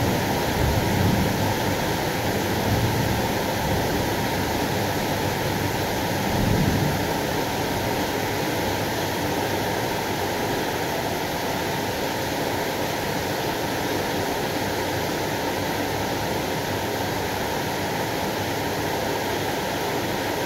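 Heavy rain pouring steadily during a thunderstorm, an even rushing hiss, with a few low rumbling swells in the first seven seconds.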